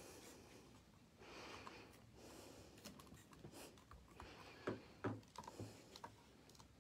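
Faint handling sounds of paper and stamping pieces being moved on a craft desk: a brief soft rustle, then a few light taps.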